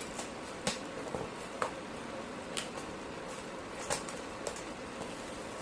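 Scattered short clicks and crinkles of packing tape and a cardboard flap being handled and pressed down, about five in all, over a steady background hum.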